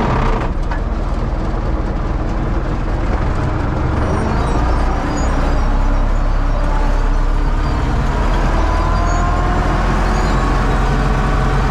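A U650 tractor's four-cylinder diesel engine runs steadily, getting a little louder about five seconds in.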